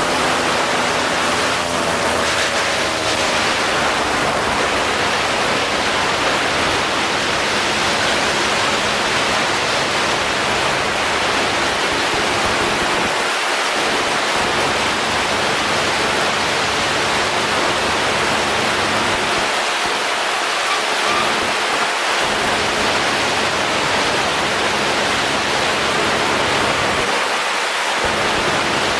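Steady rushing wind noise on the 360 camera's microphone in flight under a paramotor. The paramotor engine's drone shows faintly beneath it, most plainly in the first few seconds.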